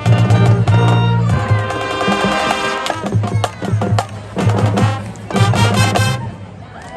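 High school marching band playing, brass chords over a drumline with sharp percussion hits. The music stops about six seconds in, at the end of a number.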